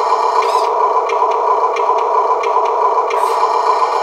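Amewi Arocs 2651 RC tipper truck's built-in sound module playing a steady diesel-engine idle through its small speaker, with light ticks about twice a second.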